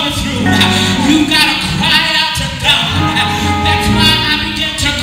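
A woman singing a worship song into a microphone in phrases of about a second each, her held notes wavering with vibrato.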